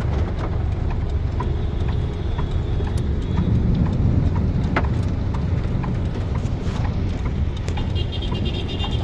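Heavy rain and hailstones hitting a car's roof and glass, heard from inside the cabin: a steady low rumble with scattered sharp ticks of stones striking. A brief high tone sounds near the end.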